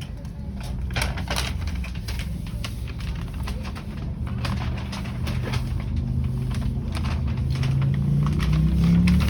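Tram running, its low motor hum rising steadily in pitch and getting louder through the second half, with scattered clicks and rattles.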